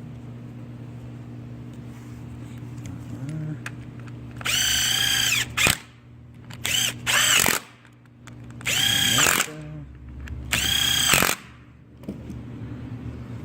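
Cordless drill/driver running in several short bursts, a high motor whine that winds up and stops each time, as it drives in the bolts holding the saw's air filter.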